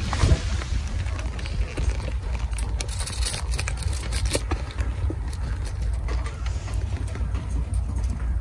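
Burning wood-pellet stove giving scattered small crackles and ticks over a low, uneven rumble of wind on the microphone.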